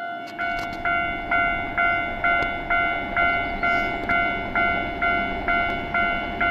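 Japanese railway level-crossing warning bell ringing: an electronic clang repeating evenly about twice a second, over a low steady rumble.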